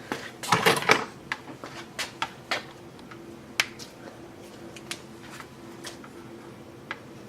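Small objects being handled on a workbench: a quick cluster of clicks and rustling knocks about half a second in, then scattered single light clicks and taps, over a faint steady hum.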